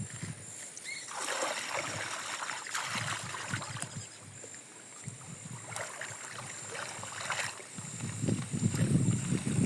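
River water splashing and sloshing in a few short bursts. Wind rumbles on the microphone near the end.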